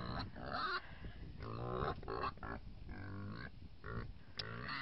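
Pigs grunting in a run of short pitched calls, roughly one every second, with a sharp click near the end.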